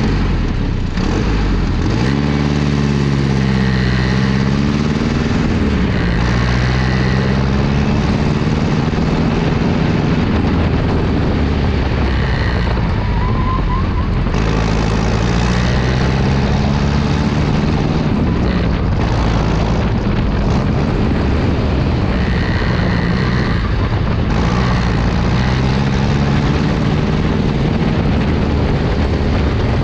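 The 10-litre engine of a 1914 Peugeot Indy 500 race car special running hard under load, heard from on board. The revs climb and fall back several times.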